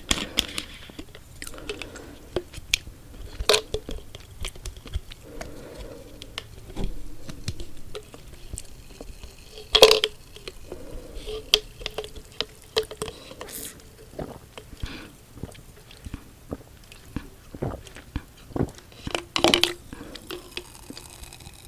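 Close-miked chewing of chocolate-coated marshmallow cookies: soft, sticky, wet mouth sounds broken by many small sharp clicks. The two loudest clicks come about ten seconds in and near the end.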